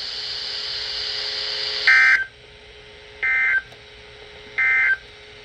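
Emergency Alert System end-of-message data bursts over weather radio: three short, harsh digital squawks about a second apart, signalling the end of the flash flood warning. Radio hiss before the first burst drops away as it sounds.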